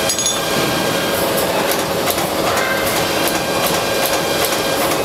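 Stator production-line machinery running in a factory: a steady mechanical din with a continuous hum and rapid, irregular clicking and clatter.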